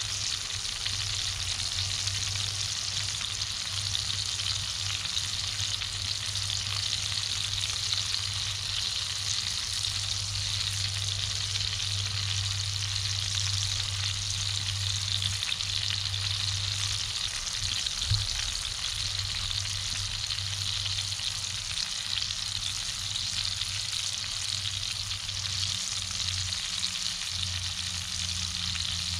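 Steak sizzling steadily in a Lodge cast-iron skillet over a wood fire, a constant hiss of frying.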